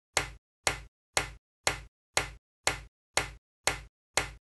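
A sharp tap repeated evenly about twice a second, each tap identical and dying away quickly into dead silence: an edited-in tapping or ticking sound effect.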